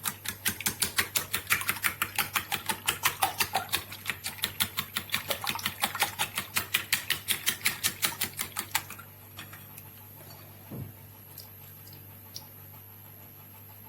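Eggs with sugar being beaten in a bowl, a utensil striking the side in fast, even clicks about five or six a second. The beating stops about nine seconds in.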